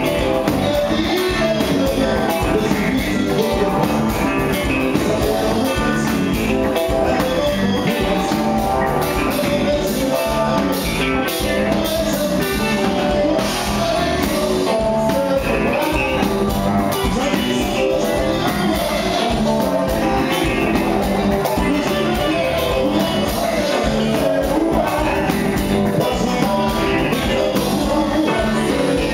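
Live band music: electric guitar, bass guitar, keyboard and drum kit playing a steady, continuous groove, with a man singing into a microphone.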